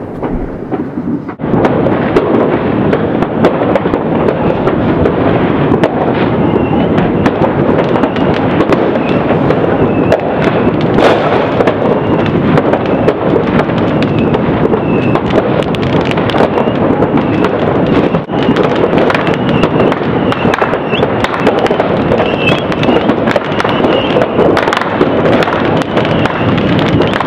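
Many fireworks and firecrackers going off together in a dense, unbroken crackle of overlapping bangs and pops, which picks up about a second and a half in.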